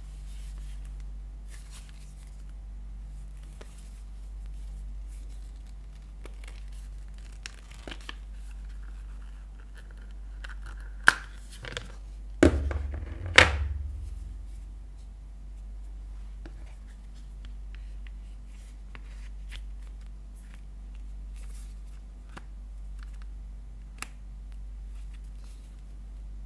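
Handling a Samsung Galaxy S21 Ultra and its phone cases: faint taps, clicks and scrapes throughout. Near the middle come three or four loud sharp snaps as the phone is popped out of its black Rhinoshield case. After that, quieter clicks and rubbing as a soft clear Nillkin case is fitted on.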